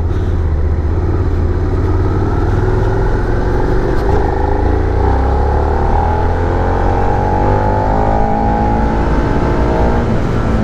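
Suzuki SV650's 645cc V-twin engine accelerating in second gear, its pitch climbing steadily for several seconds and then dropping off near the end, under a heavy wind rumble on the microphone.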